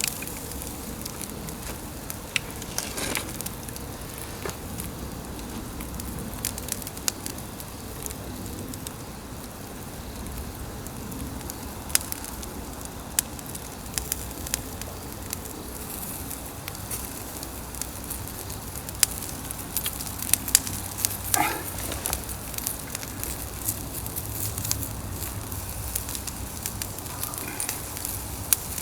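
Pine-log fire crackling with scattered sharp pops, over the steady hiss of pork loin sizzling on a grill above it.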